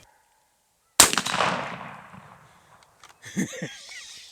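A single loud shot from a Winchester SXP 12-gauge pump shotgun about a second in, its report echoing and dying away over about a second and a half.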